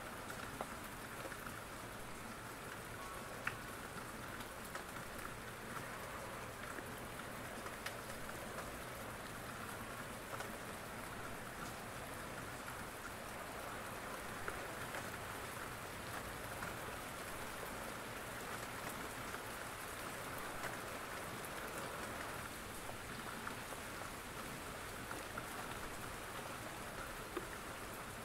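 Steady rain: an even hiss with scattered light ticks.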